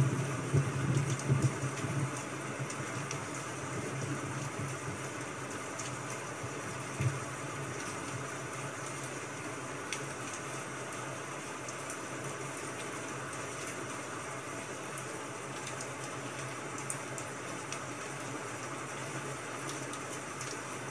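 Steady rain ambience, an even continuous hiss, with a few low rumbles in the first couple of seconds and once more about seven seconds in.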